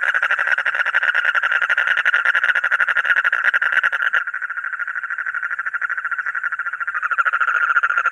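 Frog calling in a continuous, rapidly pulsing trill. It drops abruptly to a quieter, thinner call about four seconds in and comes back to full strength about seven seconds in.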